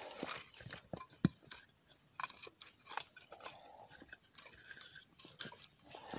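Boots crunching and shuffling in packed snow among twigs, with irregular crunches and a few sharp clicks.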